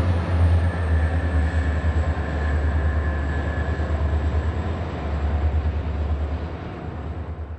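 Diesel-hauled freight train climbing a steep grade: streamliner diesel locomotives working under load with a deep pulsing drone, mixed with the rumble of box wagons rolling past. It begins to fade near the end.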